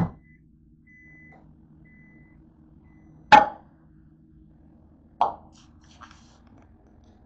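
Microwave oven door clunking open at the start, then a loud knock about three seconds in and another about five seconds in as the dish and door are handled, over a low steady hum.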